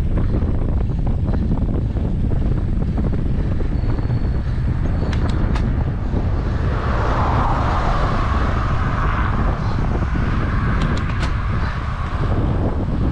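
Wind rushing over a handlebar-mounted camera's microphone as a Giant road bike rolls along an asphalt road, with a steady low road rumble. A higher hiss comes up about halfway through and fades near the end, and a few sharp clicks come through about five and eleven seconds in.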